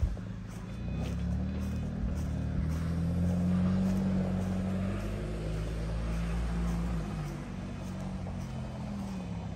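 A vehicle engine running with a low hum that swells about a second in and eases off after about seven seconds.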